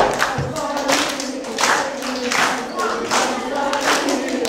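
A group singing together while clapping hands on a steady beat, about one clap every three-quarters of a second.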